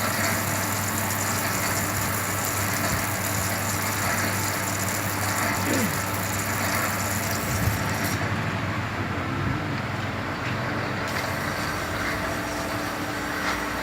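Wire-cut EDM machine running steadily: a constant low hum under an even hiss.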